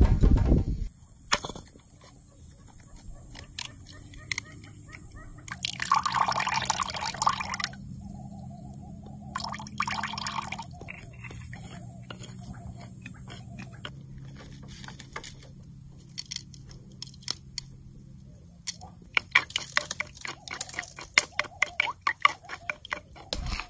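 Wooden spoon stirring a thin, watery mixture in a bowl, the liquid sloshing in a couple of swishes. Near the end come quick repeated clicks of the spoon knocking against the bowl.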